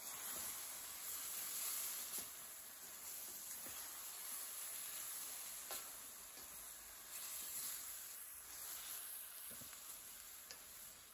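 Diced chicken and zucchini sizzling steadily in an enamelled steel pan as they are stirred with a slotted spoon, with a few light scrapes and taps of the spoon against the pan.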